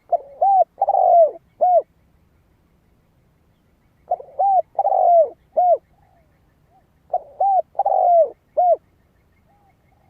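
Spotted dove cooing its song: three phrases about three seconds apart, each a short run of arched coos.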